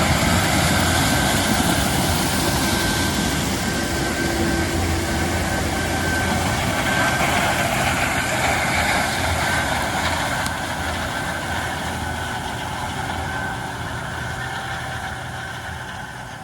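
Challenger 560C combine running under load while harvesting corn: a steady drone of engine and machinery with a thin steady whine over it. It fades out over the last few seconds.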